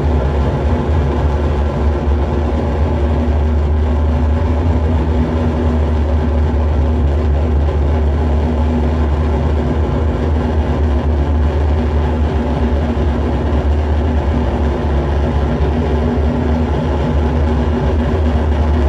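Live noise music from electronics: a loud, steady low drone with a few held tones and a dense wash of noise above it.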